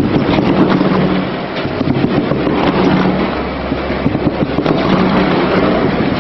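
Industrial grinder running loudly as an animal carcass is drawn into its cutters and ground up: dense mechanical rumble and clatter, with a low hum that swells and fades about every two seconds.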